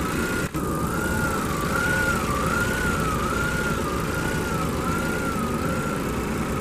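Chevrolet Tornado pickup's four-cylinder engine running steadily at idle with the hood open. Over it a faint tone warbles up and down about every 0.7 s, like a siren, then settles to a steady pitch near the end.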